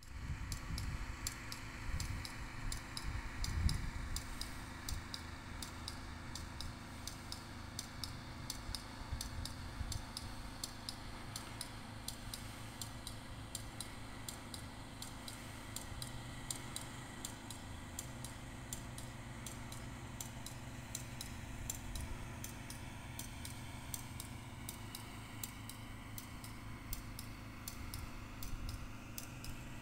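Low rumble of heavy earthmoving machinery running, with a steady engine tone, under a fast, even high-pitched ticking that runs throughout.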